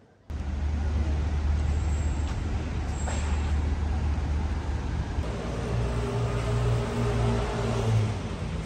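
Road traffic on a busy city street: a steady low rumble of passing cars and vans. From about halfway through until near the end, an engine's hum stands out above the rumble.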